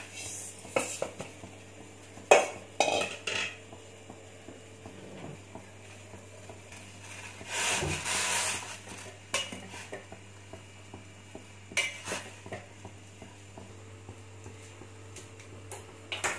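A steel spoon clinking and scraping against a stainless steel pot while Maggi instant noodles are stirred into boiling water, with scattered sharp clanks and a short swishing rush about eight seconds in. A steady low hum runs underneath.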